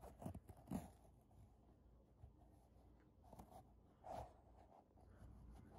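Near silence: room tone with a few faint, brief sounds, about four in all.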